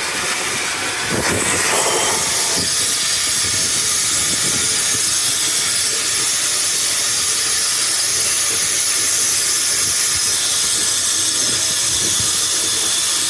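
Steam locomotive venting steam: a loud, steady hiss that builds within the first second and then holds without a break. The locomotive is Canadian Pacific 2816 'Empress', a 4-6-4 Hudson.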